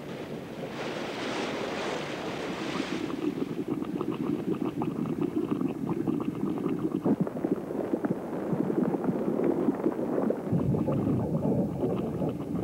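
Boiling geothermal hot-spring pool bubbling, with many small irregular pops and gurgles over a steady rushing. A spell of hiss in the first few seconds.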